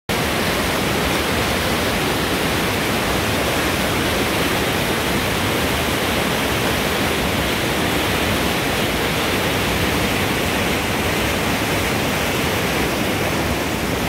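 Fast mountain river rushing over rocks in white water: a steady, even rush of water.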